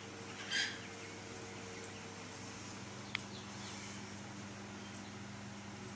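A chicken gives one short call about half a second in, and a single sharp click comes about three seconds in. A steady low hum runs underneath.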